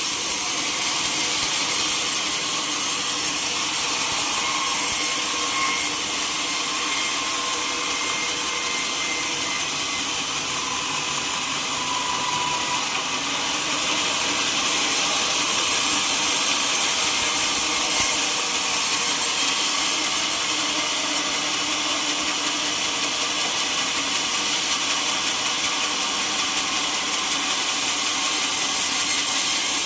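A sawmill saw cutting through a teak log, a steady hissing rasp of blade in wood with a faint held whine.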